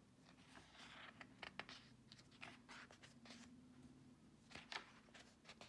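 Faint rustling and soft flicks of paper pages being turned and handled in a softcover book, over a faint low hum.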